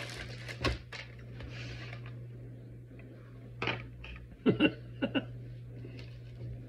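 Clear plastic clamshell tray being opened and handled: a few short, sharp plastic clicks and knocks as gummy hot dogs are pulled out of it, over a steady low hum.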